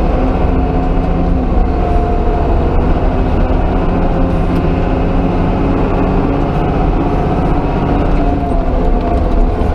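Yuchai diesel engine of a front-end loader running steadily under load as the loader drives along, heard from inside the cab, with its freshly refitted injection pump.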